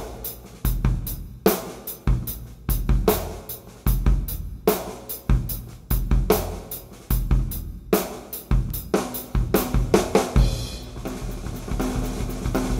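A 1970s Pinguim drum kit played solo: a steady groove on a 26-inch bass drum, a Ludwig Supraphonic snare and Paiste 505 cymbals. After about nine seconds it breaks into a faster run of strokes, with a tom ringing near the end.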